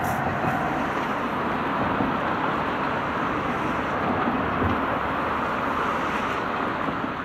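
Double-headed steam locomotives, a C11 leading and a C10 behind, working hard as they depart, heard at a distance as a steady exhaust rush with no distinct beats.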